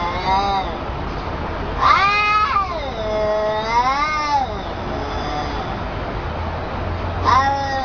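Domestic cats yowling at each other: long, drawn-out wavering cries that rise and fall in pitch, one starting about two seconds in, another following it, and a fresh yowl starting near the end.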